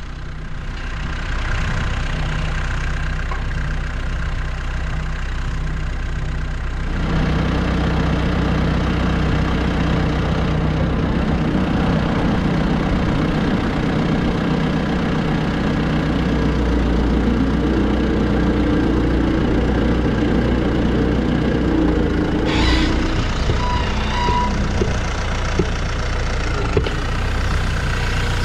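Utility tractor engine running steadily, getting louder about seven seconds in as the tractor is driven forward onto a loading ramp to press a tire's bead off its rim.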